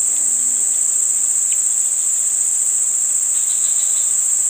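A steady, loud, high-pitched drone from a chorus of insects, unbroken throughout.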